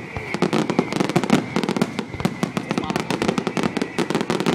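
Fireworks crackling: a dense, irregular run of sharp pops, many a second, over a faint steady hiss.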